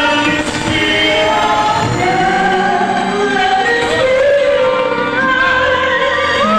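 A man and a woman singing a slow ballad duet together into handheld microphones, with held notes that waver in pitch, over a backing track.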